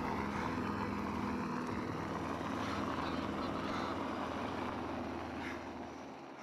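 A steady, engine-like low drone with a rushing hiss over it, fading out near the end.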